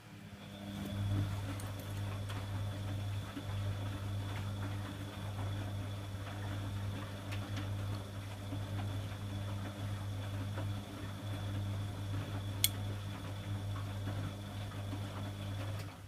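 Bosch WFG2020 washing machine's drum motor running on a Cotton 60 wash, turning the drum and tumbling the wet laundry: a steady low hum with a faint high whine that starts, runs for about sixteen seconds and stops, with a single sharp click near the end.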